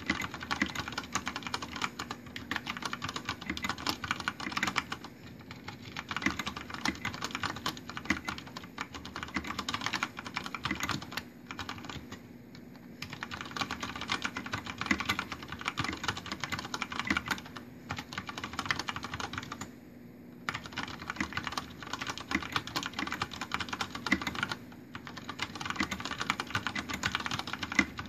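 Typing on a Deck Francium Pro mechanical keyboard with brown switches and PBT keycaps: a fast, steady clatter of keystrokes that stops briefly a few times.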